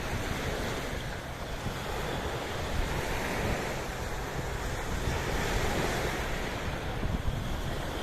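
Sea waves washing in steadily, with wind buffeting the microphone as a low rumble.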